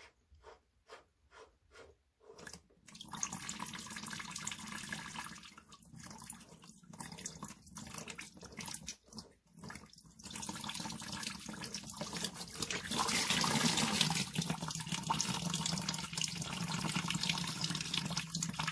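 Leftover water draining and splashing out of a Navien tankless water heater's ports as its hot-side inlet filter is unscrewed and pulled. A few faint, evenly spaced clicks come first; the water starts about three seconds in, falters for a while, and runs heavier near the end.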